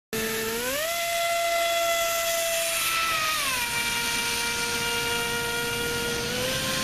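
Brushless electric motor and air propeller of a radio-controlled airboat, a steady high whine over a rush of air. The pitch climbs about half a second in, drops about three seconds in as the boat runs slower, and lifts a little near the end.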